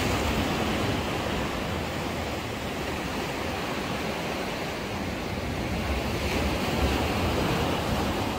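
Sea waves washing against the concrete tetrapods of a breakwater, a steady surf noise, with wind gusting on the microphone.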